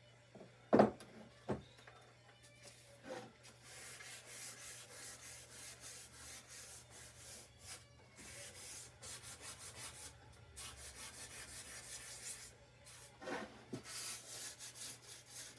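Wet sandpaper rubbed back and forth over a rusty steel chainsaw guide bar, in quick scratchy strokes of about three a second with a couple of brief pauses. Two sharp knocks sound about a second in, louder than the sanding.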